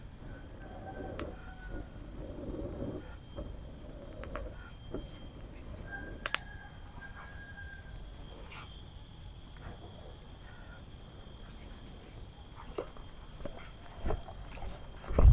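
Insects chirping in short repeated pulses, with breathy blowing into a smoking tinder bundle in the first few seconds to build the ember into flame. A few footsteps on grass near the end.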